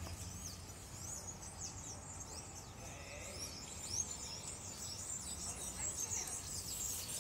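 A flock of small songbirds chirping in a tree: many short, high chirps overlapping without a break, over a steady low background hum.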